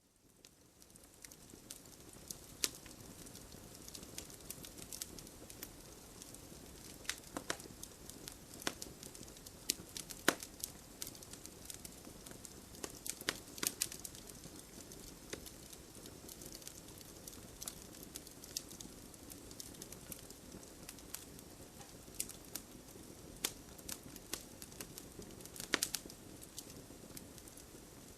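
Crackling wood fire: a steady soft hiss with frequent sharp pops and snaps, fading in over the first second or two.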